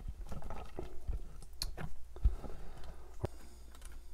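Fingers pulling a sauce-covered crispy chicken drumstick out of thick butter chicken sauce on a plate: a scatter of short, wet, sticky clicks.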